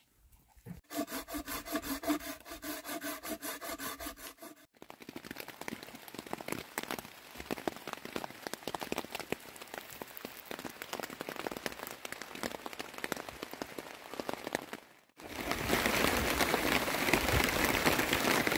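Rain pattering on tent fabric, followed about three-quarters of the way through by heavier, louder, steady rain on tarps. About a second in, a rhythmic rasping noise runs for a few seconds before the rain starts.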